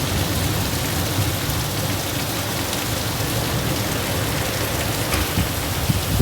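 Storm of strong wind and rain: a steady rushing noise with a low rumble.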